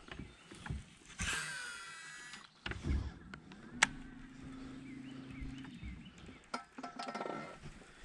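A cast with a DC-braked baitcasting reel: the spool whines with a falling pitch as line pays out, and the lure lands about three seconds in. A steady low hum follows for a couple of seconds.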